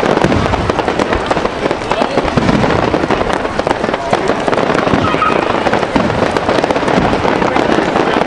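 Fireworks display going off: a dense, continuous run of crackles and bangs.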